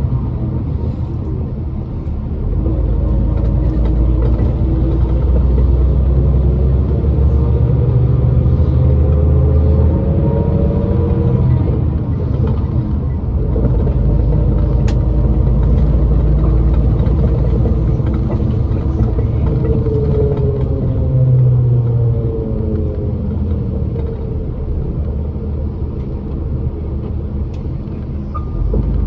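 Bus engine and road rumble inside the cabin, the engine note rising and falling as the bus speeds up and slows down.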